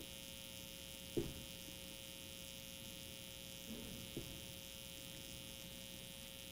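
Steady electrical mains hum at a low level, with a few faint, short knocks about a second in and again near the middle.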